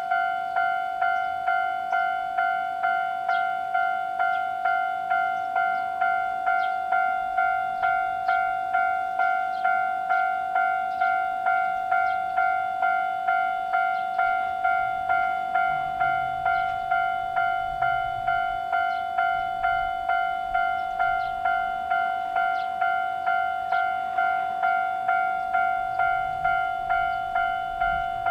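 Japanese level-crossing warning bell ringing its electronic 'kan-kan' tone, evenly repeated at just under two strikes a second. A low rumble joins in under it about halfway through.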